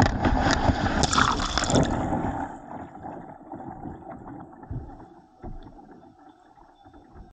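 Kayak launching off a concrete edge into the water: a splash and rush of water for the first two seconds or so, fading to quieter water lapping and gurgling against the hull.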